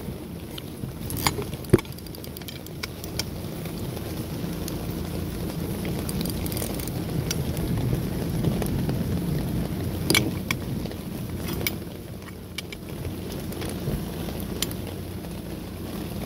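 Wrench and socket clinking against a van's rear shock-absorber mounting bolt as it is worked loose by hand: a few sharp metal clinks spread through, over a steady low background rumble.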